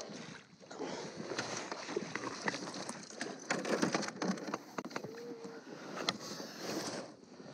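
Water splashing and short knocks of net and gear against a fishing kayak as a big bass is brought alongside and scooped into a landing net.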